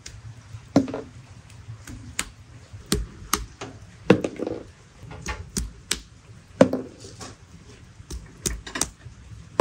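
A hand-held stone knocking chestnuts against a wooden stump to crack their shells: a dozen or more sharp knocks at an irregular pace, some with a dull thud from the wood.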